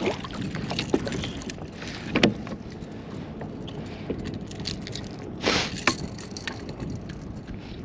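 Handling noise of a striped bass being held down and unhooked on a plastic kayak deck: scattered sharp knocks and clicks against the hull and gear, with a short burst of noise about five and a half seconds in.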